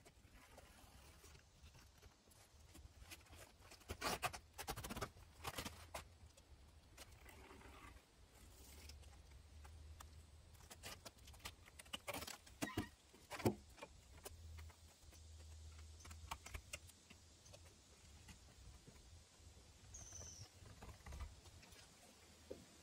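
Faint rubbing of a cloth rag wiping dust and grime off a car's roof edge and chrome windshield trim, with scattered short scrapes and taps, the loudest around four to six seconds in and again around twelve to thirteen seconds in.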